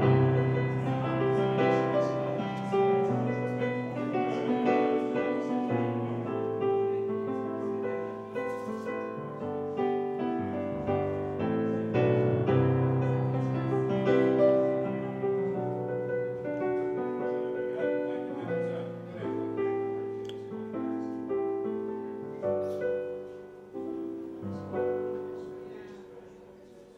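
Solo piano playing a slow piece of held chords under a melody, fading out near the end.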